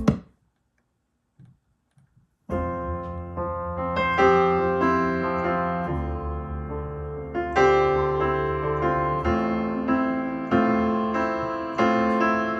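Piano music played back through a two-way bookshelf loudspeaker with a ribbon tweeter and a 6.5-inch aluminium-cone woofer in a transmission-line cabinet. A short silence between tracks, then the piano comes in about two and a half seconds in with a run of ringing chords; the tail of the previous track cuts off right at the start.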